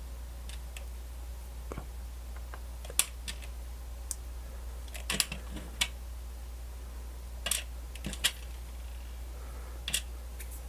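Light, irregular clicks and taps of small plastic radio parts and tiny screws being handled and fitted during reassembly, about a dozen in all, over a steady low hum.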